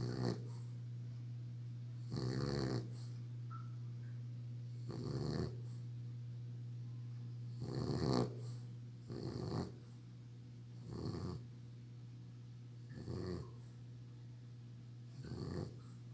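A sleeping flat-faced bulldog snoring, one snore about every two seconds, eight in all.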